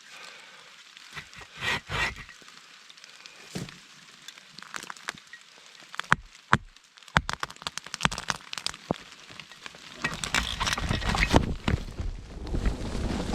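Scattered sharp cracks and snaps of wood and brush being handled, irregular at first. They thicken into a busy stretch of rustling and snapping near the end.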